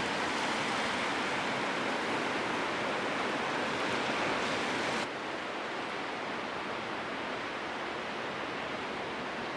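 Steady rushing of ocean surf, a constant hiss-like wash that drops suddenly in level and loses some of its high end about halfway through.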